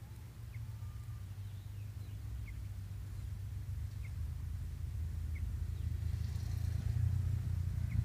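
A low steady rumble that grows louder throughout, with faint short bird chirps every couple of seconds above it.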